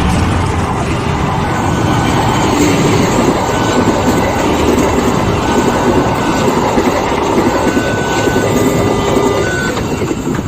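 A train passing close by at a railway level crossing: a loud, steady rumble and rattle of wheels and cars, with a few brief faint tones now and then, easing off near the end.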